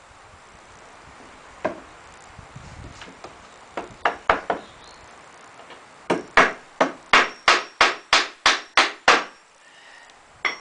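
Hammer driving a nail into pallet board wood: a few scattered taps, then a steady run of about ten strikes at roughly three a second.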